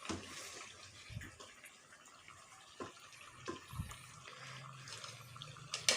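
Potatoes in tomato gravy simmering in a karahi with a soft hiss, and a few faint clicks.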